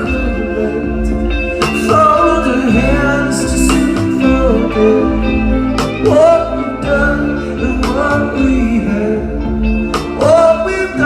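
Live rock band playing at full volume: a sung vocal over guitars and bass, with regular drum hits.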